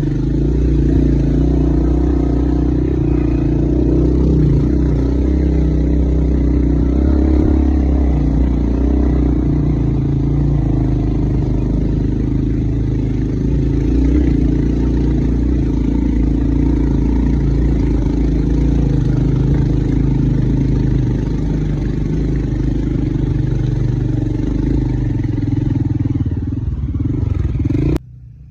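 A motor vehicle's engine running steadily with a low hum, heard close. It cuts off abruptly near the end.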